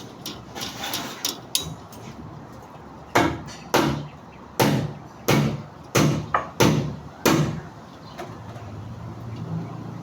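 Hammer blows: about eight sharp strikes in a steady run, roughly one every two-thirds of a second, each with a short ringing tail. They follow a few lighter knocks and clatter.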